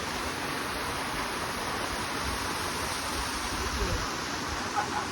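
Small natural mountain waterfall, water falling and splashing in a steady, even noise.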